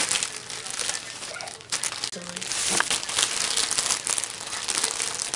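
Gift wrapping and packaging crinkling and rustling as it is handled, an irregular run of crackles.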